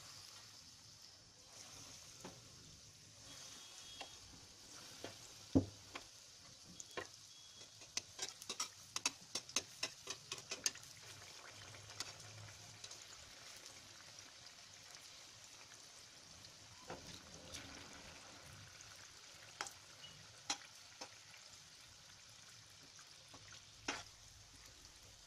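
Banana dough balls deep-frying in hot oil in a kadai on a low flame: a steady sizzle, with scattered sharp clicks and a quick run of them about eight to eleven seconds in, while a metal slotted spoon turns the balls.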